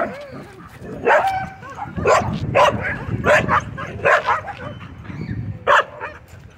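Dog barking repeatedly, about eight sharp barks at uneven intervals, some with a whining pitch.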